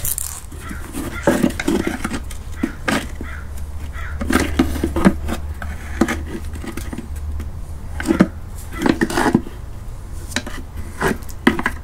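Large flathead screwdriver prying and bending open the little aluminum tabs around a VW Mk4 shift box housing: irregular metal clicks, scrapes and clinks.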